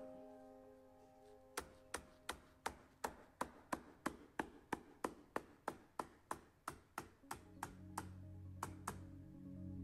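Corded electric staple gun firing staples through a carpet stair runner into the stair, about twenty sharp snaps in quick, even succession at roughly three a second, over quiet background music.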